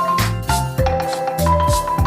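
Background music: a bright mallet-percussion melody, like marimba or xylophone, over a steady beat and bass notes.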